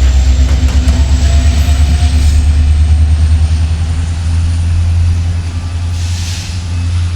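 Freight coal train rolling past: a loud, steady low rumble of cars on the rails with a fast flutter that smooths out and eases about three and a half seconds in, and a faint high wheel squeal over it.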